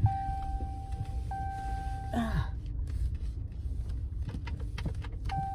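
Car cabin noise while driving slowly on a dirt road: a steady low rumble of engine and tyres. A steady high tone sounds through the first two seconds or so and again near the end, and a short falling vocal sound comes about two seconds in.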